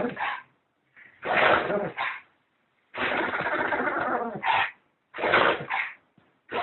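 An animal sneezing over and over, about every second and a half. Each sneeze is a sharp, noisy burst followed at once by a shorter second puff, and the one about three seconds in is longer and drawn out.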